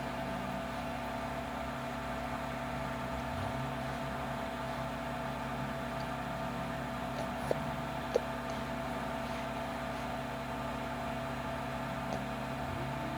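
Steady machine hum with a few constant tones, like a fan or appliance running in the room. Two light clicks come about seven and a half and eight seconds in.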